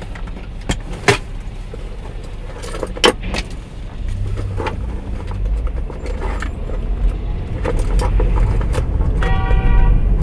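Car driving slowly in city traffic, heard from inside through a dashcam: a steady low engine and road rumble with scattered clicks and rattles, two sharp knocks in the first few seconds. The rumble grows a little as the car speeds up, and a short tone with several pitches sounds near the end.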